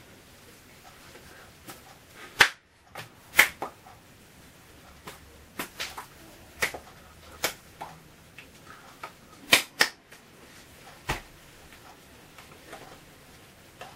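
A series of about a dozen sharp hand claps and snaps at uneven intervals, not in a steady rhythm, the loudest a little after two seconds in and near ten seconds.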